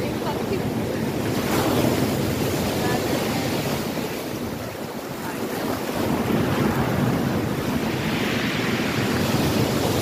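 Sea waves breaking and washing up a pebble beach, with wind buffeting the microphone. The surf eases a little around the middle and builds again.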